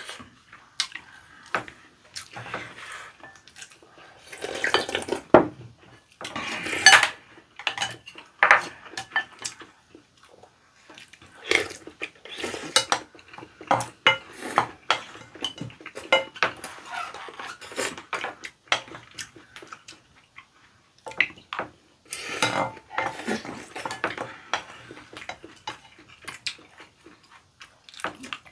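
Wooden spoons scraping and clinking against ceramic bowls and chopsticks tapping during a meal, in irregular clicks and scrapes with short noisy stretches between.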